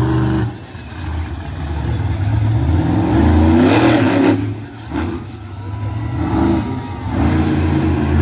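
Reptoid monster truck's engine revving hard, its pitch climbing over a couple of seconds, then dropping away sharply as the throttle is lifted and picking up again, several times over.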